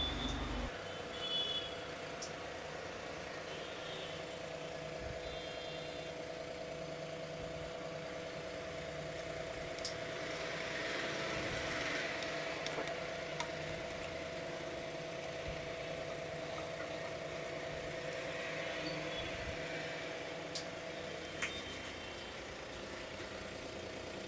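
A steady mechanical hum, with a few short high-pitched chirps and occasional sharp clicks.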